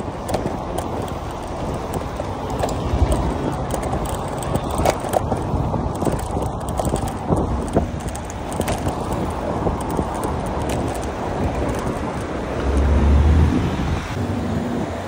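Bicycle ride along a brick-paved cycle lane beside slow car traffic: wind noise on the handlebar microphone and the noise of the cars, with frequent light clicks and rattles from the bike over the paving. A brief, louder low rumble comes about 13 seconds in.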